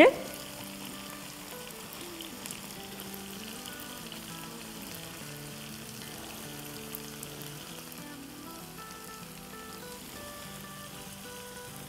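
Minced mutton and whole tomatoes sizzling steadily in a frying pan, under soft background music.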